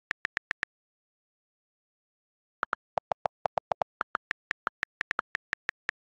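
iPad on-screen keyboard key clicks: a quick run of five taps, a pause of about two seconds, then about twenty taps in a row at several per second as a message is typed.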